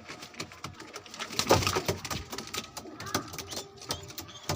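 Fancy pigeons cooing, among many short sharp clicks and knocks.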